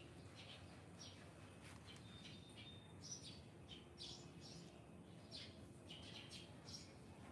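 Faint bird chirps: short, high calls scattered irregularly, with a brief thin whistle about two seconds in.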